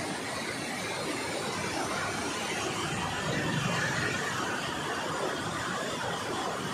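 Banganga river in flood after heavy rain, muddy floodwater rushing past in a steady noise of water.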